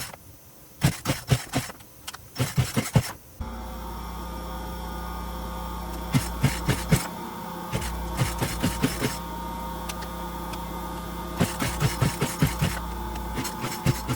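Poulan Pro 42 cc two-stroke chainsaw being pull-started over and over, each pull of the recoil cord spinning the engine in a quick burst of rapid clicks without it firing. A steady electrical hum starts about three and a half seconds in.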